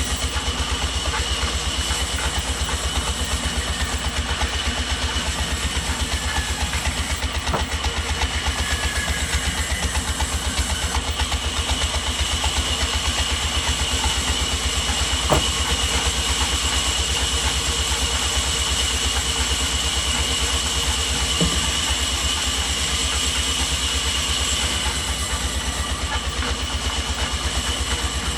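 Sawmill machinery running steadily, an engine-like rhythmic thrum with a steady high whine over it, broken by a few sharp knocks.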